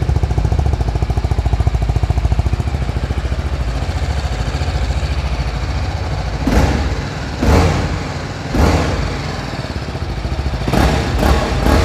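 2022 BMW G310R's 313 cc single-cylinder engine idling steadily at operating temperature with the auto choke off, then revved in short throttle blips. There are three about a second apart, then three quicker ones near the end, each rising and dropping back quickly: a sharp throttle response.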